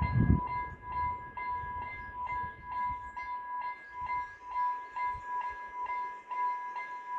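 Vialis E-bell electronic level-crossing bell ringing at an even pace, about two strokes a second, with a bright bell tone that carries on between strokes. This is the crossing's warning that a train is approaching and the barriers are coming down. A brief low rumble sounds in the first half second.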